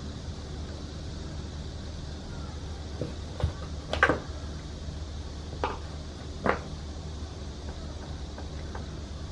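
A handful of short knocks and scrapes, the loudest about four seconds in, as a cat works at a catnip-candy stick toy and knocks it against the window's metal track, over a steady low hum.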